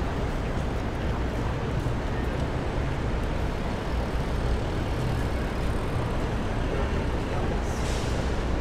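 Steady city street traffic noise, a low rumble of passing vehicles, with a brief hiss near the end.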